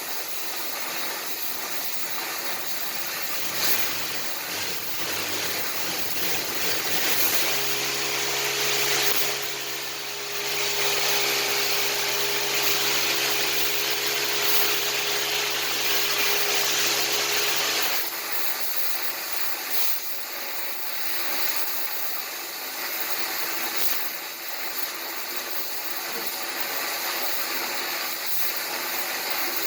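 Welding arc sizzling and crackling steadily. From about seven seconds in to about eighteen seconds a steady machine hum joins it, then stops.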